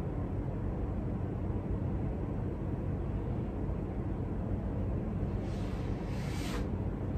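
Steady low background rumble, with one short hiss about five and a half seconds in.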